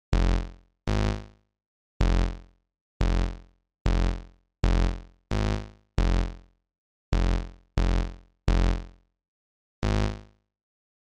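Single notes from Chrome Music Lab Song Maker's Synth instrument, each sounded as a note is clicked onto the grid. There are about a dozen short notes at uneven intervals, each dying away quickly.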